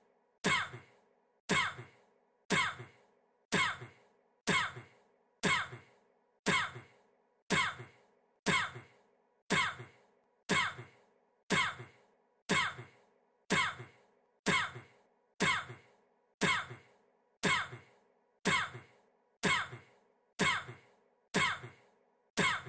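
A man's single short cough looped over and over, the identical cough repeating about once a second, each copy starting sharply and fading quickly.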